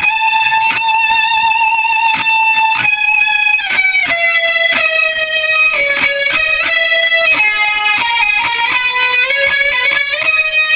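Background music led by guitar: a melody of long, held, slightly wavering notes over a regular beat.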